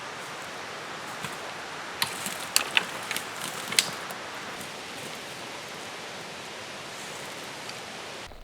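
Steady rushing of a creek, with a few sharp clicks or snaps about two to four seconds in.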